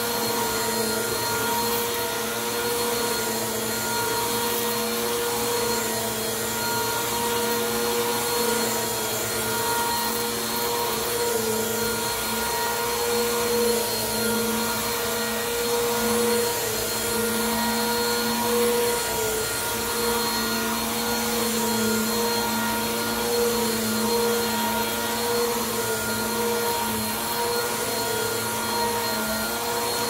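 Bissell PowerForce Compact upright vacuum cleaner running on carpet: a steady motor hum and whine over the rush of air, with no change in speed.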